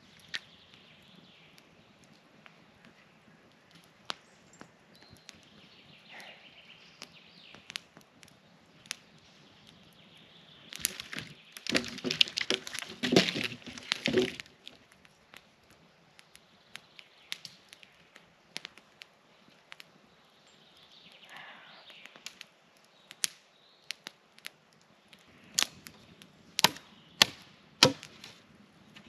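Dry wood being worked by hand. Scattered cracks and knocks, then a few seconds of dense, loud cracking and snapping about halfway through, and a run of sharp knocks near the end.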